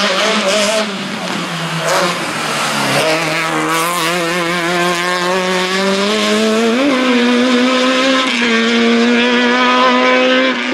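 Fiat 127 slalom car's four-cylinder engine running hard at high revs. Its pitch drops about three seconds in, climbs slowly after that, blips briefly near the seven-second mark, then holds steady.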